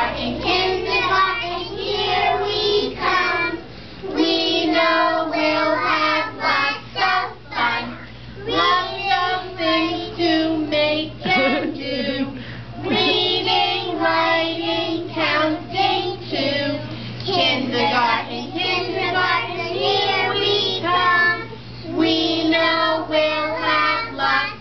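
A group of young children singing a song together, phrase by phrase with brief pauses between lines.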